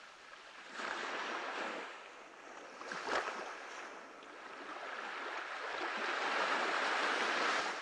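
Small waves washing onto a sandy beach, a hiss of surf that swells and ebbs: surges about a second in and about three seconds in, then a longer build near the end.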